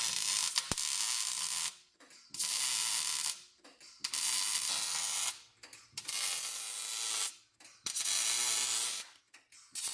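Welding arc crackling and hissing in about six short bursts of a second or so each, with brief pauses between: a seam being welded in short stitches.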